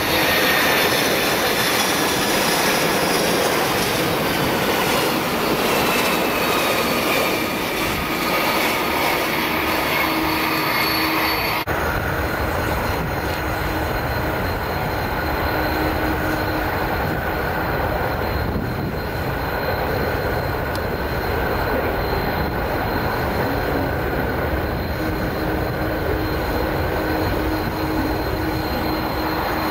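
Jet engines of a Boeing 747-200F freighter: a whine that falls in pitch as it passes on approach. About twelve seconds in the sound changes abruptly to a steady low rumble with a constant whine as the jet rolls out on the runway.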